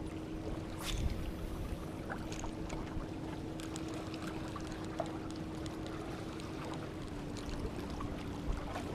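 Steady water noise with an even low hum that drops slightly in pitch near the end, and a few faint knocks.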